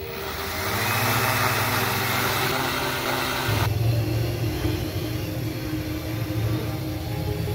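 A homemade quadcopter's brushless motors and propellers spinning up over the first second, then running steadily with a whirring hum. The sound changes abruptly about three and a half seconds in.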